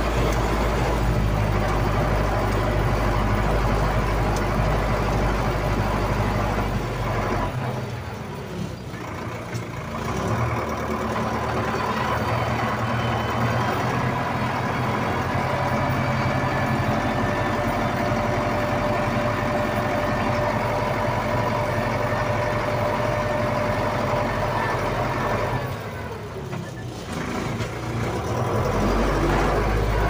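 Snow plow's engine running steadily, heard from inside the cab, with a deep low rumble. The rumble drops away and it goes a little quieter twice: about eight seconds in and again about twenty-six seconds in.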